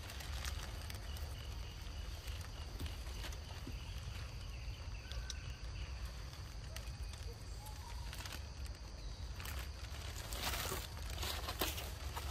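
Outdoor ambience with a low steady rumble and scattered light rustles and clicks, busier for about a second near the end.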